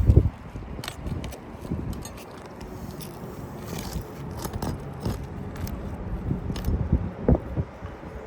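Hand work on old asphalt roof shingles: irregular scraping, crackling and small knocks as shingles and nails are handled, with a heavy thump right at the start and a sharper knock about seven seconds in.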